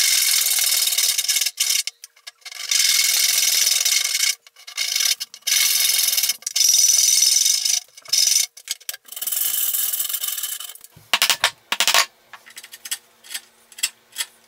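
Hand saws cutting bamboo flooring in a run of strokes, each about half a second to a second and a half long. From about eleven seconds in, this gives way to short sharp clicks and scrapes of a chisel paring the joint.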